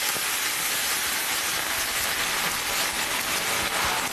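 River shrimp deep-frying in hot oil in a frying pan, a steady dense sizzle. This is the first fry, at moderate oil temperature.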